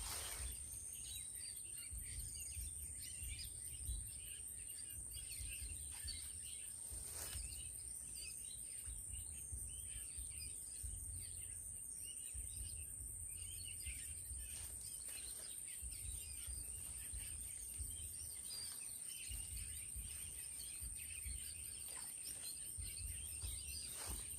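Outdoor ambience: a steady high-pitched insect drone with scattered bird chirps, under an on-and-off low rumble and a couple of faint knocks.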